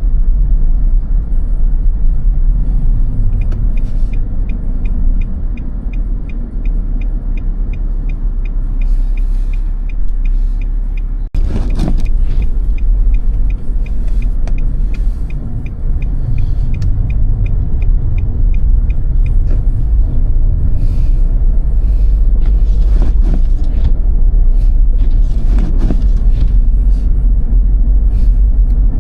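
Car driving on snow-covered roads: a steady low rumble of engine and tyres, with a regular light ticking about twice a second for the first half and a few short louder knocks or swishes later on.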